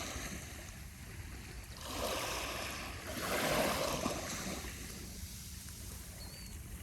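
Small waves of a calm sea breaking and washing up the beach, two swelling washes about two and three and a half seconds in, over a steady low rumble.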